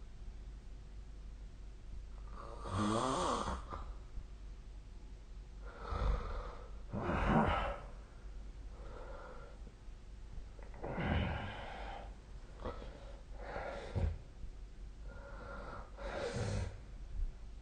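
A sleeping person snoring: about six snores at uneven intervals a few seconds apart, each lasting up to about a second, with fainter breaths between. Some snores have a pitched, rattling buzz.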